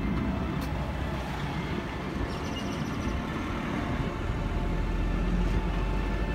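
Vehicle engine running steadily, with a deeper low rumble building about four seconds in.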